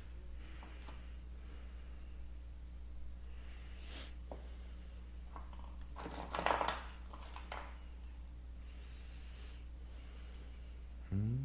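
Faint workshop handling noise over a steady low hum, with a brief clatter of metal tools about six seconds in.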